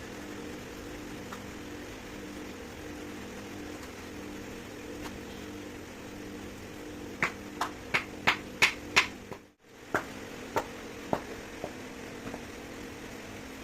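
A steady, pulsing machine hum. Over it, about halfway in, comes a quick run of about a dozen sharp taps, closest together at first and then spacing out.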